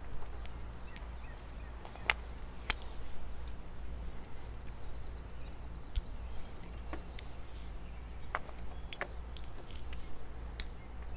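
A few sharp clicks and knocks as a VIC-1 intercom crew box and its cable connectors are handled and fitted, over a steady outdoor background hum.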